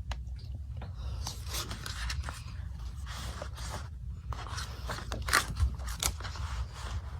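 Paper rustling and scraping as the pages of an album photobook are turned and handled, in irregular strokes with two sharper snaps a little past five seconds in, over a steady low hum.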